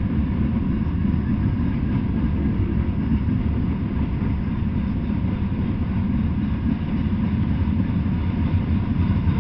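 Freight train cars rolling past on the rails, a steady low rumble.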